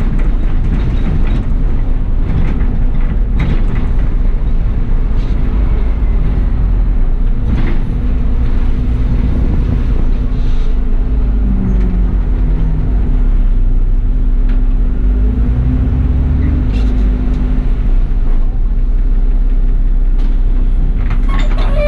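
Bus engine running while the bus is driven, heard from the driver's position: a steady low drone whose pitch rises and falls a little in the middle, with scattered rattles and knocks from the bodywork.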